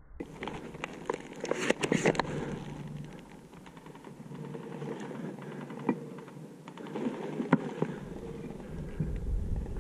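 Irregular sharp clicks and crackles. They are densest about two seconds in, and one loud click stands out near the end.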